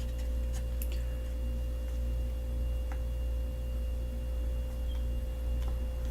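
Steady low background hum with a thin, steady whine above it, and a few faint handling ticks.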